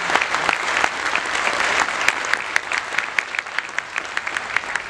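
Audience applauding, thinning out toward the end into scattered single claps.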